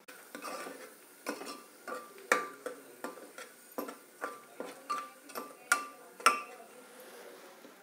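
Metal spoon stirring a thick spice masala in an open aluminium pressure cooker, knocking and scraping against the pot's sides and rim with short ringing clinks. They come irregularly, a few a second, loudest about two and a half, five and a half and six seconds in, and stop about six and a half seconds in.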